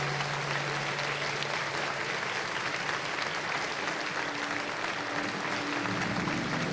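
Audience applauding steadily. Faint music comes in near the end.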